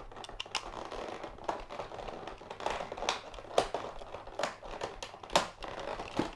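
Plastic toy parts being handled and fitted together, with scattered sharp clicks and taps, about eight of them, over light rustling of plastic and packaging.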